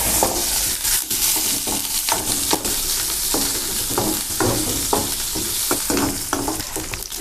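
Shallots and curry leaves frying in coconut oil in a pan, sizzling steadily, while a utensil stirring them scrapes and knocks against the pan many times.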